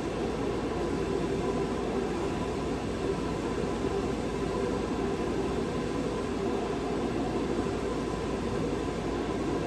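A steady machine hum with a faint constant whine, unchanging in level.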